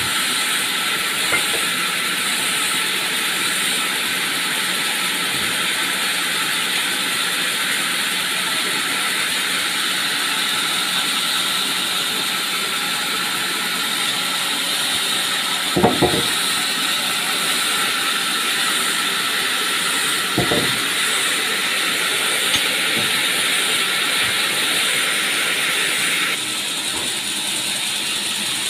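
Sawmill log saw running steadily with a high, hissing machine noise as the log carriage works, with two sharp knocks in the middle. Near the end the noise drops a little and changes.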